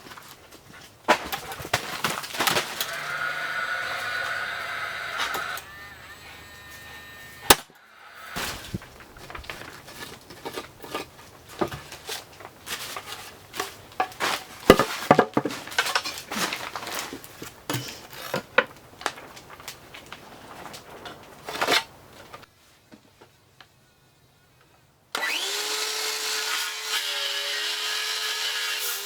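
DeWalt circular saw cutting lumber twice, the first cut near the start and the second near the end. Between the cuts come a sharp knock and a long run of scattered knocks and clatter of wood being handled.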